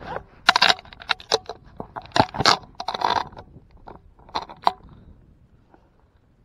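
Handling noise of fishing gear on a kayak: irregular scrapes, clicks and sharp knocks as a hooked hard lure is worked over a rubber-mesh landing net and the gear is shifted. The sounds come in clusters about half a second in, from about two to three and a half seconds in, and twice more around four and a half seconds, then it settles.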